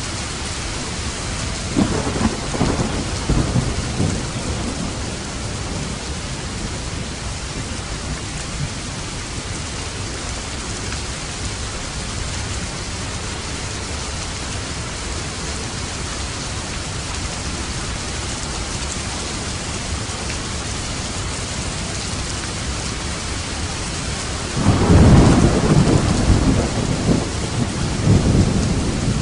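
Steady rain falling, with low rolls of thunder: a short rumble about two seconds in and a louder, longer one starting near the end.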